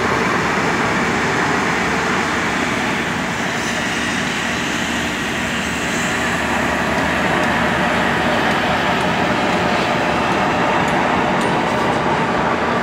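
Palm oil mill machinery running: a loud, steady industrial rumble and hiss with a faint low hum underneath.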